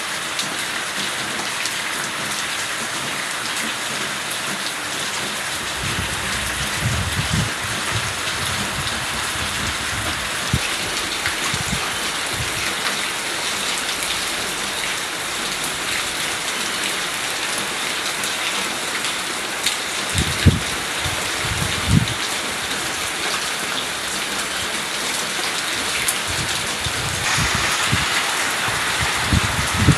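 Steady rain falling, an even hiss of drops, with a few brief low thumps scattered through it. The rain grows a little heavier near the end.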